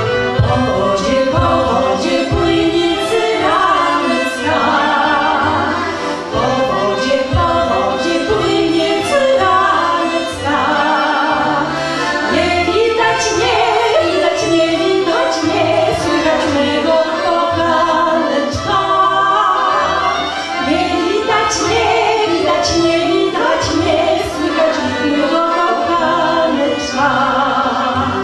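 Women's voices singing a Polish folk song together, accompanied by a folk band of violin, clarinet, accordion and double bass, with the bass plucking steady low notes underneath.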